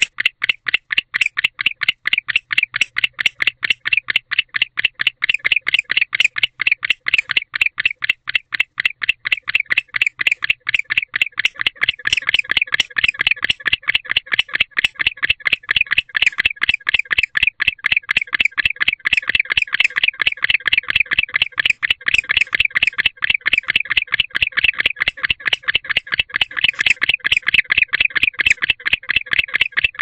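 A night-calling insect trilling in a steady, rapid pulse, about six pulses a second without a break.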